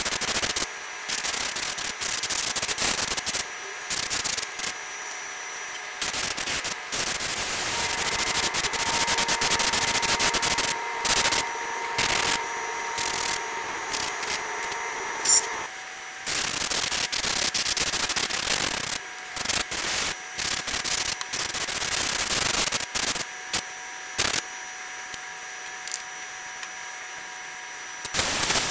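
Airbrush spraying in short, irregular hissing bursts as its trigger is pressed and released, cutting in and out many times.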